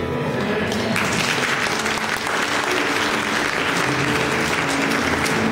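Church congregation applauding, the clapping swelling about a second in and running on steadily.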